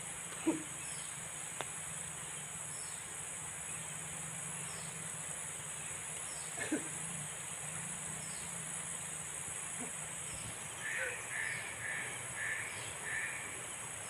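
Insects buzzing steadily, with a bird giving a short falling call about once a second. A little after ten seconds in comes a run of four short calls from a bird, and there are two soft knocks.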